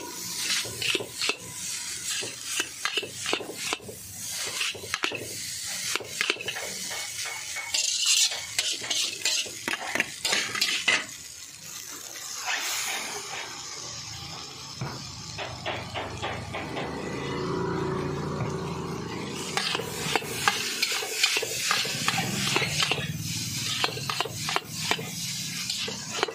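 Metal tongs clanking and scraping against a wok and a stainless steel plate as noodles are tossed and stir-fried, in irregular runs of clicks and clatters. The clanking thins out into a steadier noisy stretch midway, then picks up again near the end.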